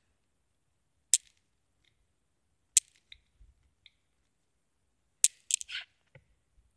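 Sharp hard-plastic clicks from an anime figure being forced onto its plastic stand: two single clicks a little under two seconds apart, a few faint ticks, then a quick run of clicks about five seconds in.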